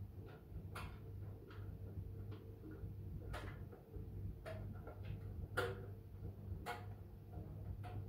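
Miele W1 front-loading washing machine tumbling a load: a steady low motor hum, with sharp clicks and knocks roughly once a second as the laundry drops inside the turning drum.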